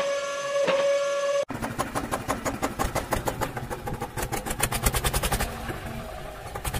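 A steady horn-like tone for about a second and a half that cuts off abruptly, then a tractor engine starting up and chugging in an even rhythm of about five beats a second.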